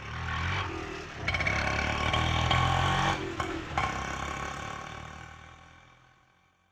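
Indian auto rickshaw engine running with rattling, swelling up out of silence, loudest for a couple of seconds, then fading away, like the rickshaw passing by. A few sharp clicks or knocks stand out near the middle.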